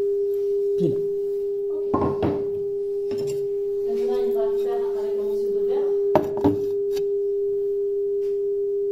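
Loudspeaker fed by a low-frequency signal generator, playing a steady 400 Hz pure tone at about 80 dB for a sound-insulation test. A few short knocks sound about two seconds in and again about six seconds in.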